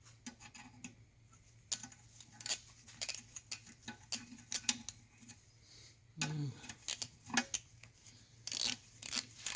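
Hand tools and bolts clicking and clinking against the engine, in scattered single clicks that turn into a quicker run of clicking near the end, like a ratchet wrench being worked.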